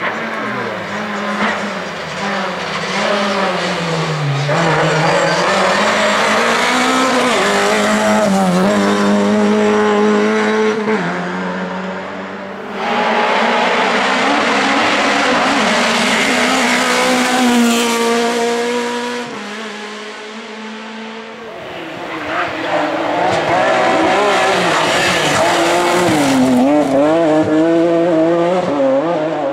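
Rally cars driven hard on a stage: engines revving high, pitch rising and falling repeatedly with gear changes and lifts off the throttle, with tyres squealing. The sound changes abruptly about 13 s and again about 19 s in, as one car's run gives way to the next.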